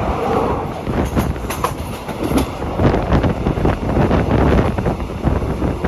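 Train running along the rails, a steady loud rumble with rapid wheel clatter and wind buffeting the microphone.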